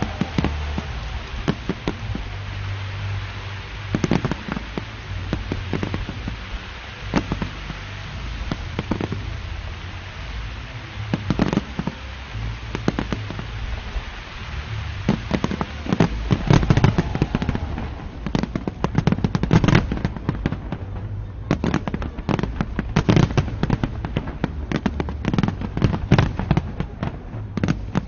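Fireworks display: a continuous run of sharp bangs and crackles, growing into a dense, rapid volley in the last third, with the voices of a crowd reacting underneath.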